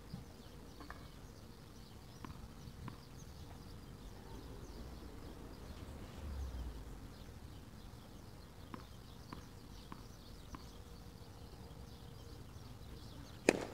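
Quiet tennis court between points: a tennis ball bouncing on the court, four evenly spaced bounces about two-thirds of the way through, then a racket striking the ball sharply near the end, as in a serve.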